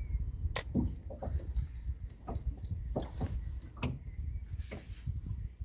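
Low, uneven wind rumble on the microphone, with scattered sharp clicks and short squeaks as a spinning fishing reel is cranked and a fish is brought in.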